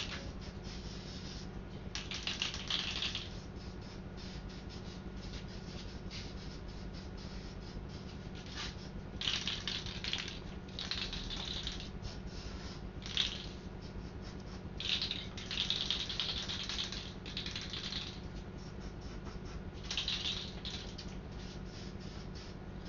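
Filler primer being sprayed in about six short hissing bursts, the longest a few seconds, with faint rattling and clicking between them.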